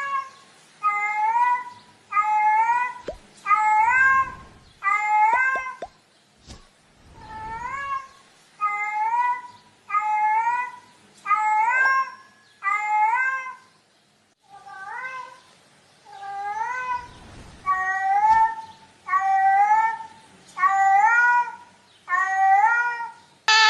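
Female cat in heat calling: a long string of loud, drawn-out meows that rise in pitch, each about a second long and coming roughly every second and a half, with a short break a little past halfway.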